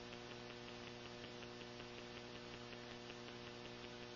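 Steady electrical mains hum with its evenly spaced overtones, the background noise of an old lecture recording, with faint regular ticks about four a second.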